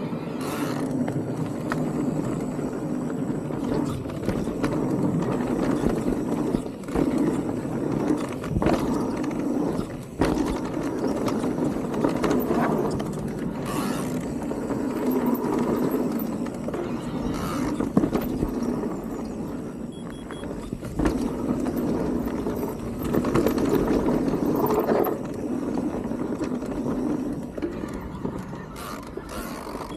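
Electric mountain bike riding a dirt trail: steady tyre and trail noise with frequent sharp knocks and rattles as the bike rolls over bumps.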